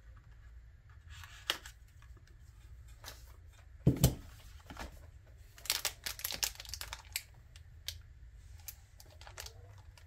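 Crinkling and rustling of plastic packaging and an anti-static bag as computer parts are handled, with scattered small clicks. There is a dull thump about four seconds in and a busier patch of rustling a little later.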